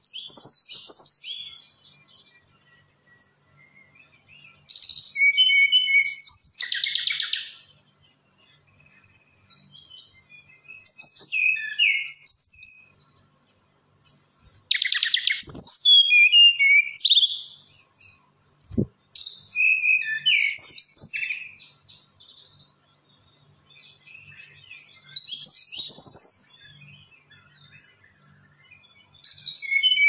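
Hill blue flycatcher (sulingan) singing: bursts of high, rapid whistled warbling notes that glide up and down, each phrase lasting a second or two and repeated every few seconds with pauses between.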